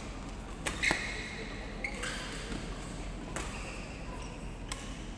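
Badminton rackets striking a shuttlecock: several sharp cracks spread through the few seconds, the loudest pair about a second in, ringing in a large hall, with short high squeaks between them.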